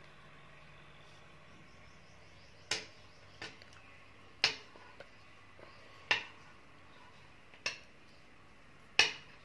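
Hand knitting with metal needles: six sharp, light clinks, one roughly every second and a half, over faint room tone.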